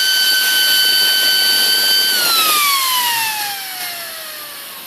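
Delta PFR0812XHE brushless DC fan running at full speed with a high whine over a rush of air, then, about two seconds in, losing power and spinning down, its whine sliding steadily lower in pitch and fading.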